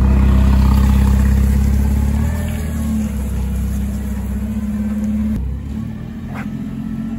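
Propane-fuelled forklift engine running hard while its forks lift a load. The engine note steps down about two seconds in and drops again about five seconds in, as the load is lowered onto the trailer.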